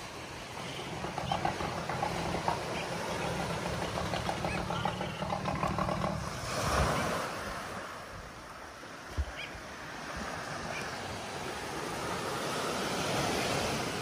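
Small waves breaking and washing up a sandy beach, swelling about halfway through and again near the end. A low steady hum runs under the surf for roughly the first half, and there is a single sharp tap about two-thirds of the way in.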